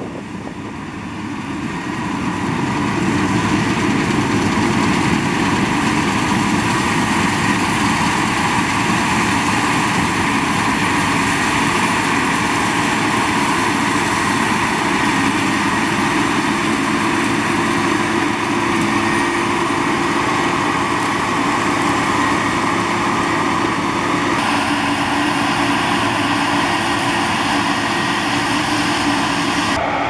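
Claas Lexion 550 combine harvester running close by: a loud, steady drone of engine and machinery that swells over the first couple of seconds as it comes near. The tone shifts slightly about 24 seconds in.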